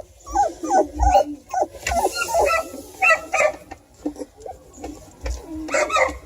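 Three-and-a-half-week-old beagle puppies whimpering and yipping in a string of short, high, wavering calls as two of them play-wrestle.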